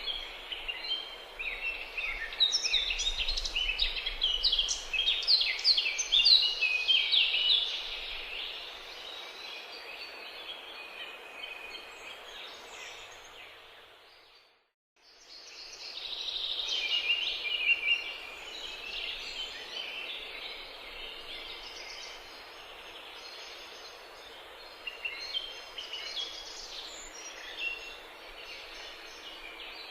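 Many small birds chirping and singing over a steady hiss. The song is busiest in the first third, fades out briefly about halfway, then comes back in.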